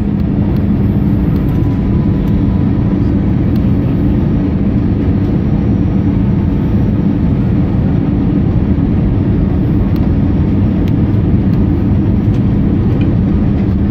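Steady low rumble of an Airbus A320 airliner, engines and airflow, heard from inside the passenger cabin.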